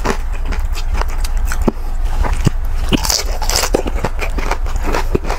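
Crispy deep-fried pork knuckle (crispy pata) skin crunching and crackling as it is bitten, chewed and pulled apart by hand, in many short irregular crunches.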